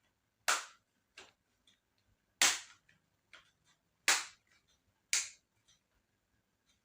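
Sharp plastic snaps from the laptop's case clips popping loose as the cover is pried open: four loud snaps with fainter clicks between them.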